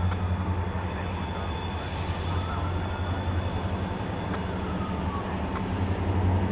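Diesel locomotive engines running with a steady low rumble and a faint steady whine above it.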